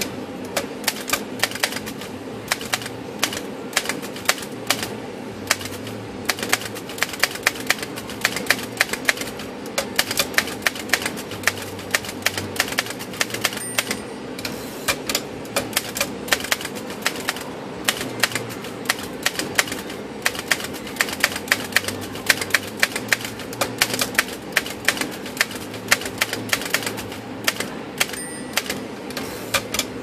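A 1924 Underwood No. 5 manual typewriter typing steadily: rapid key and typebar strikes clacking against the platen. Twice, about 14 s apart, the typing pauses with a brief high ring as a line ends and the carriage is returned.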